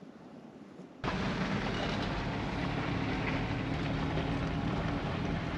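A vehicle engine running steadily under wind noise on the microphone, starting abruptly about a second in.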